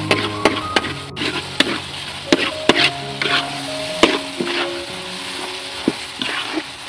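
A spatula scraping and knocking against a metal wok as minced meat, vegetable strips and eggs are stir-fried, with sizzling underneath. The scrapes come irregularly, several a second, over soft background music.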